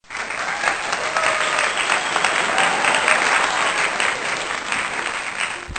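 Crowd applauding: many hands clapping in a dense patter, with a few faint voices mixed in. It cuts off abruptly near the end.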